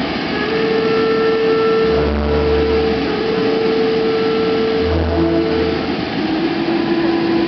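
Music accompanying a fireworks display, heard through a dense steady hiss: long held notes, with a deep bass note about every three seconds.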